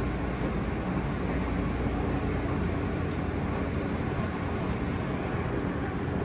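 Steady hum and rumble of an R160A subway train standing at the platform with its doors open, its ventilation and auxiliary equipment running, with a faint high steady whine above it.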